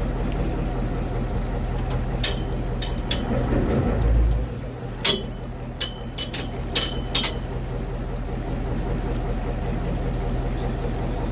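Fishing boat's engine running steadily with a low hum. About nine sharp clicks and taps, likely fishing tackle being handled, come in the middle stretch, along with one dull low thump about four seconds in.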